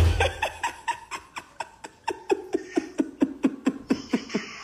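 A woman laughing in a long run of short, rhythmic 'ha-ha' pulses, about four or five a second, trailing off near the end.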